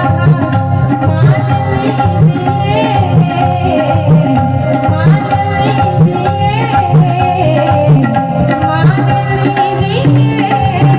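Live Indian song performance amplified over stage loudspeakers: a woman singing to a steady tabla rhythm, with sustained keyboard notes underneath.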